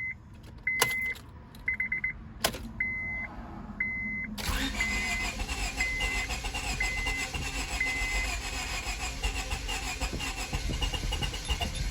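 A dashboard warning chime beeps about once a second, with a few sharp clicks between beeps, as the ignition key is cycled to prime the fuel pump. About four seconds in, the 2002 Honda Civic's starter cranks the engine steadily without it catching, while the chime goes on for a few more beeps. The owner thinks it lost fuel pressure while it sat.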